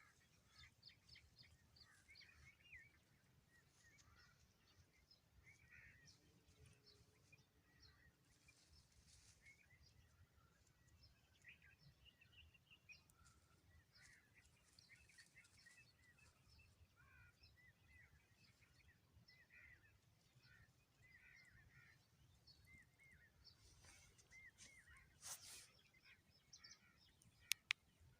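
Faint birdsong: many small birds chirping and twittering in short repeated notes over a low background rumble, with a brief rustle-like noise and two sharp clicks near the end.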